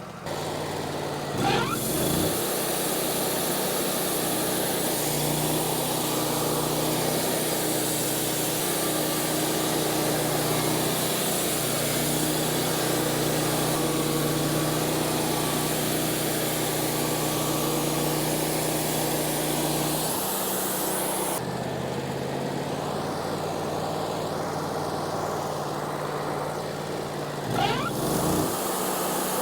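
Wood-Mizer LT40 portable bandsaw mill running steadily on its 26.5 hp G28 engine, with the hiss of the band sawing through a log. The hiss drops away about three-quarters of the way through while the engine keeps running, then comes back near the end.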